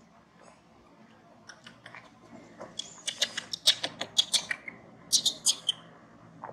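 Infant macaque squeaking: a rapid run of short, high-pitched squeaks from about three seconds in, and a second short run just after five seconds.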